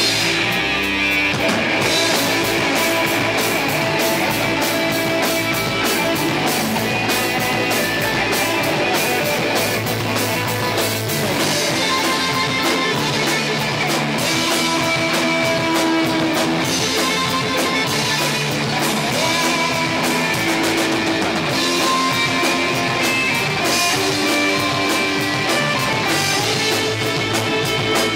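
Heavy metal band playing live: electric guitars over a drum kit with steady cymbal hits, recorded through the camera's own microphone.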